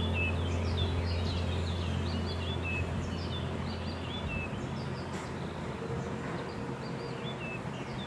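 Many small birds chirping in a dense chorus of short, quick calls, over a steady low hum that stops about four seconds in.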